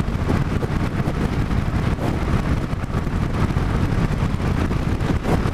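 Cruiser motorcycle's engine running steadily while riding at road speed, mixed with wind rushing over the microphone.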